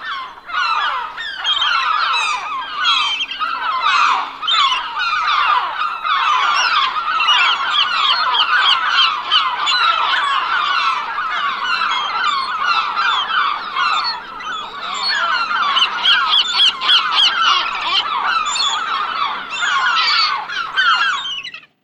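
A large flock of gulls calling, many cries overlapping without a break, cutting off sharply just before the end.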